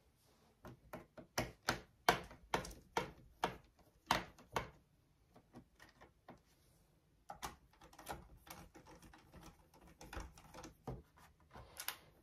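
Sharp plastic clicks and snaps from a laptop's bottom panel being worked loose from its clips: about a dozen louder snaps in the first five seconds, then, after a short pause, a quicker run of smaller clicks.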